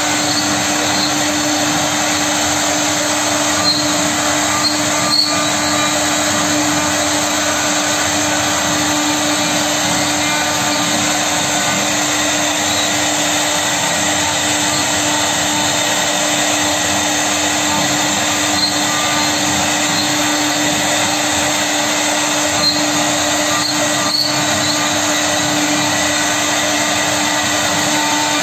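CNC router spindle running, its bit routing an ornamental relief into a wooden panel. The noise is loud and steady, with a constant tone under it and a few faint ticks.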